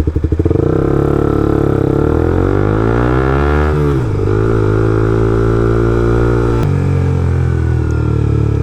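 Suzuki GSX-R 125's single-cylinder four-stroke engine accelerating, its pitch rising for about three seconds, then dropping sharply at a gear change about four seconds in. It then holds a steady pitch, with another sudden change in tone near six and a half seconds.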